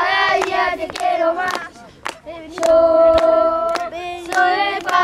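A group of young boys chanting a football chant in unison, clapping along about twice a second.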